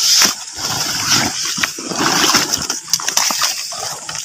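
Wet grass rustling and crackling with water splashing and dripping as a bottle-and-wire-mesh eel trap is pulled out of shallow swamp water.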